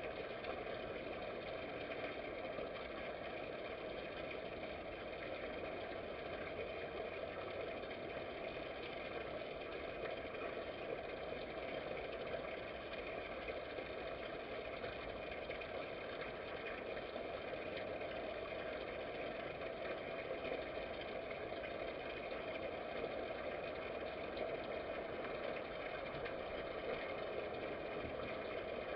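Steady machine hum with hiss, unchanging in pitch and loudness.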